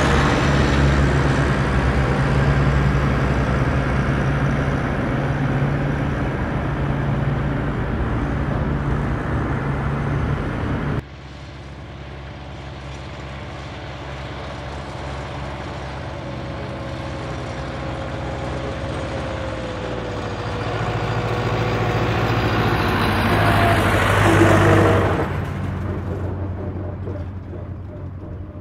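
Motor vehicle engine running steadily with a low hum; it cuts off abruptly about 11 seconds in. Then a vehicle approaches, grows louder and passes with its pitch falling, and fades away near the end.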